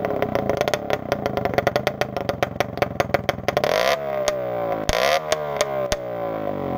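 Old two-stroke moped engine running with its muffler off, blipped up and down with a loud, crackling exhaust; revs climb sharply about four seconds in and again a second later before dropping. The engine is running rich.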